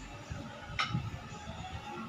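Faint background music, with one short sharp click a little under a second in.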